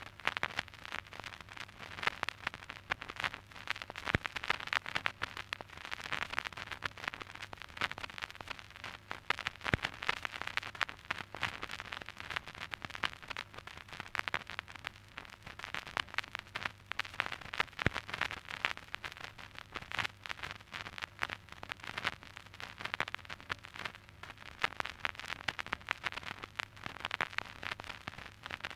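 Surface noise of an old vinyl record playing with no music: dense crackle and pops over a steady hiss, with a faint low hum underneath and a few louder pops.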